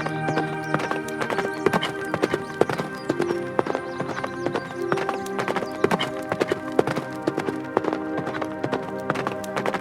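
Horse hooves clip-clopping in many irregular strikes over steady background music.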